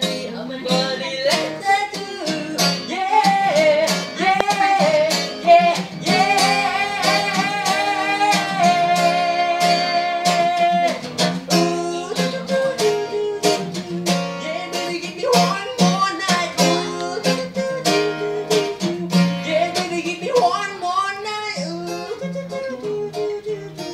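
Acoustic guitar strumming steadily under a singer's voice, which sings wordless runs and holds one long note about a third of the way in.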